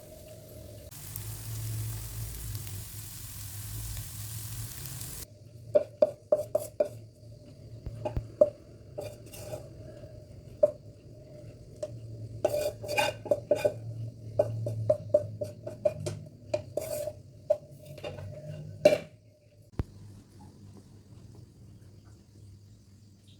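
Stir-frying in a pan: a sizzle for the first few seconds, then a spatula knocking and scraping against the pan over and over. It stops a little before the end.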